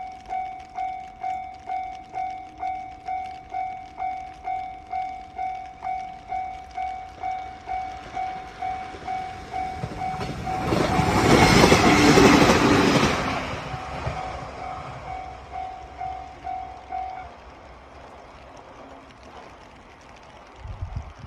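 Level-crossing warning bell dinging steadily about twice a second while a train passes through the crossing. The train's rushing noise swells about ten seconds in, nearly drowns the bell for a few seconds and fades away, and the bell stops a few seconds later.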